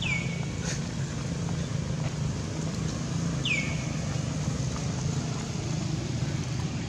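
A steady low engine hum, like a motor vehicle running nearby. Two short high calls, each falling in pitch and then briefly held, sound at the start and about three and a half seconds later.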